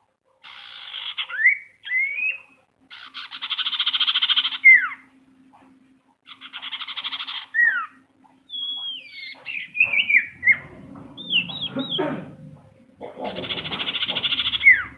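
Sirtu (cipow, the common iora) calling: harsh buzzing chatters, each a second or two long and ending in a sharp falling whistle, given four times, with a run of short whistled notes in between.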